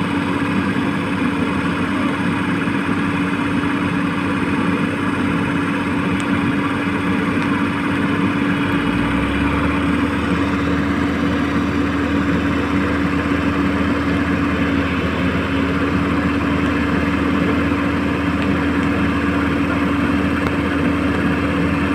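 Electric drive motors and gearboxes of a Huina 1535 RC excavator running steadily with a constant hum. A deeper hum joins about nine seconds in.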